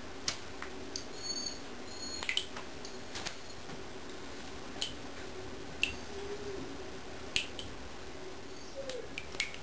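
Feeder goldfish flopping on the floor of an empty bathtub, giving sharp little slaps at irregular intervals, about one a second, with a slight bathroom echo.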